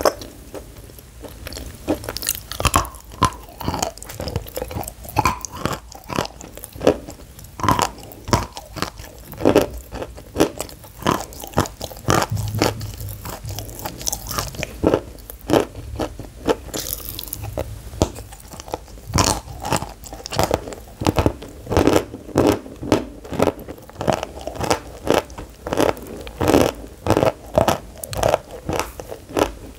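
Close-miked bites and crunching chews of pressed edible chalk, a quick irregular run of sharp crunches with a quieter stretch a little before the middle and thicker crunching in the second half.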